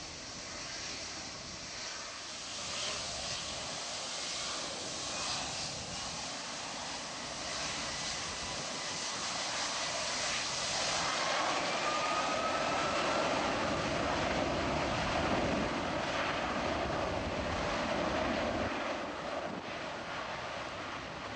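Boeing 757-200 jet engines running, the roar building steadily to a peak past the middle and then easing, with a thin whine that rises in pitch partway through.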